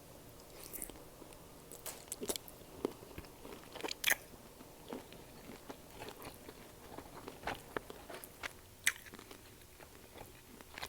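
Close-miked chewing and biting of shrimp-boil food in butter sauce: irregular wet mouth clicks and small crunches throughout.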